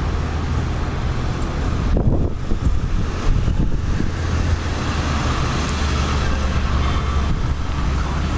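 METRA commuter train's diesel locomotive running with a steady low rumble, with some louder rattling a couple of seconds in.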